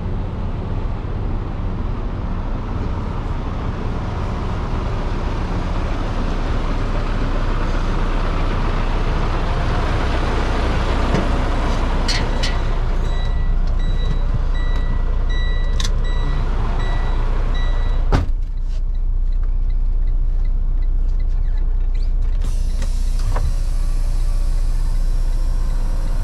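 Semi-truck diesel engine idling with a steady low hum. About 12 seconds in, a high electronic beeping from the dashboard sounds for some six seconds, a single sharp knock comes at about 18 seconds, and a hiss of air from the brakes starts near the end.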